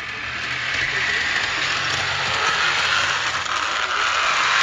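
Vintage HO scale Sampson Zephyr model train with a rubber-band drive running along the track, a steady mechanical running noise from the drive and wheels on the rails.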